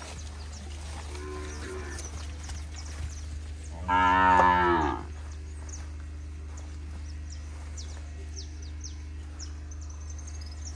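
A cow moos once, loudly, for about a second, starting about four seconds in.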